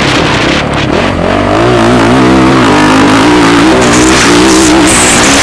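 Motocross bike engines revving hard, the pitch climbing about a second in and then wavering up and down.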